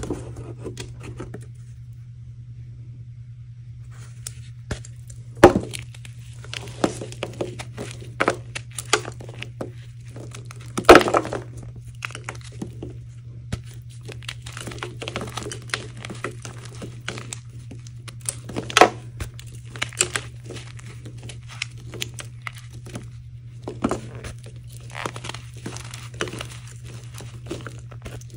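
Hands crushing and crumbling dried reformed chalk blocks, a run of crunches and crackles with a few loud sharp snaps as the blocks break. The blocks have dried out for two months, which makes them super crunchy. A steady low hum runs underneath.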